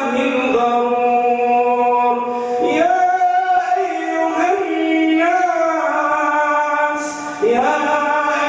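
A man's voice chanting in Arabic in a drawn-out, melodic style. He holds long notes and slides up in pitch between phrases.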